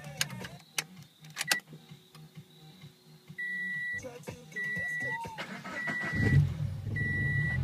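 A few sharp clicks, then a car's warning chime beeping about once a second. About six seconds in, the Scion FR-S's 2.0-litre flat-four begins cranking over and grows louder: a hard start on 1000cc injectors and an E85 tune.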